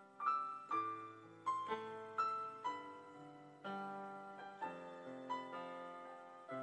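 Piano playing a slow, gentle introduction: chords and single notes struck every half second to a second, each ringing and fading away.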